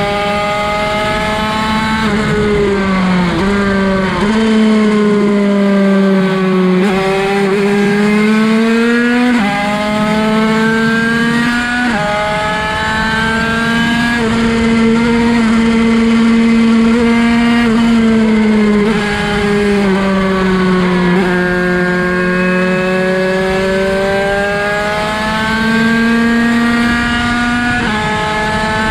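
Derbi 50cc two-stroke race bike engine with a Bidalot cylinder, run hard at high revs: a high, steady note that climbs with speed and jumps in abrupt steps at each gear change, then falls away as the bike slows and picks up again.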